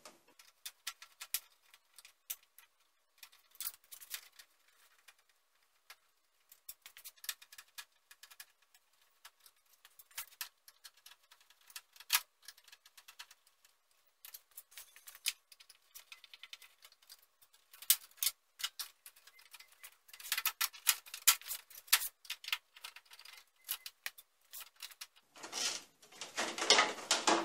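Scattered small clicks and ticks of hand work on a Jeep Cherokee XJ's plastic grille as it is unscrewed and unclipped. Near the end comes a louder, denser rattle of plastic as the grille is pulled loose.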